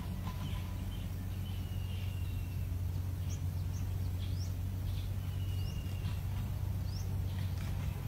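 Small birds chirping: several short, high, rising chirps and two thin, level whistles about a second long, over a steady low hum.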